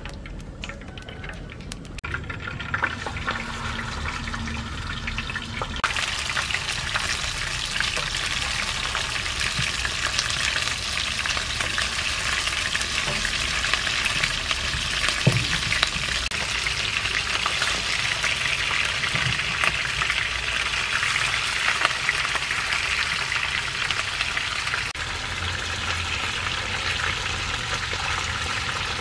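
Fish steaks frying in oil in a frying pan: a dense crackling sizzle that builds over the first few seconds and jumps louder about six seconds in, then holds steady, with a wooden spatula stirring in the pan near the end.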